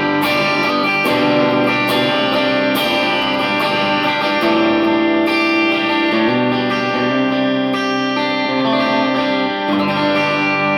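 Electric guitar, a 1996 Ibanez Talman on its Lambertone Grinder bridge pickup, coil-tapped, playing ringing chords that change every second or two. It is heard through a Kemper amp profile with a compressor on.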